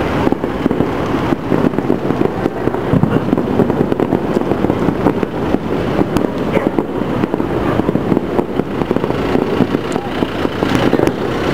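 A distant fireworks display going off, heard as a steady, dense rumble and crackle of many small bursts with no single bang standing out.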